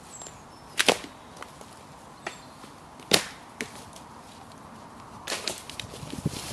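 Dry sticks cracking and snapping: a double crack just under a second in, the loudest single crack about three seconds in, and a quick run of smaller snaps near the end.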